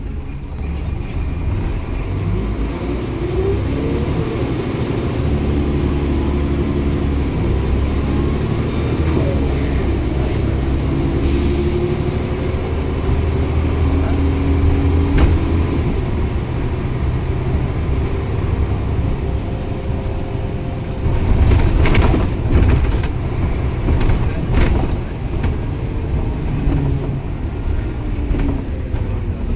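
Volvo B10BLE bus's rear-mounted six-cylinder diesel engine pulling hard uphill, heard from inside the saloon, its note rising and dropping back several times as the gearbox changes up. A burst of rattles and knocks from the bus body comes about two-thirds of the way through.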